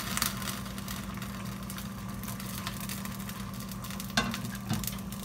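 Risotto simmering and crackling in a pot just after a ladle of hot broth goes in, over a low steady hum. A sharp knock sounds about four seconds in.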